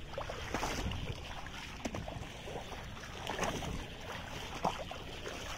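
Shallow floodwater sloshing and splashing as someone wades through it and handles a fishing net, with a few sharper splashes.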